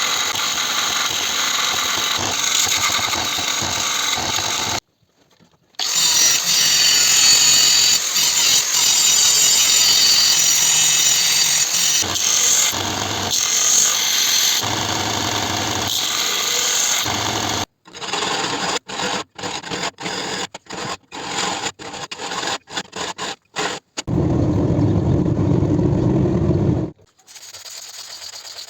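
Power tools working steel, heard in edited clips: long stretches of dense, hissing grinding, then a run of short, abruptly cut snippets, then a lower, steadier machine sound that stops near the end.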